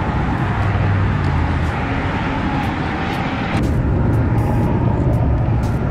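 Steady rumble of road traffic, heavy in the low end, stepping up slightly a little over halfway through.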